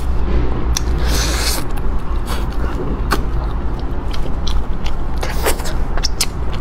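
Close-up chewing of tender braised chicken with a few sharp smacking clicks, over a steady low hum.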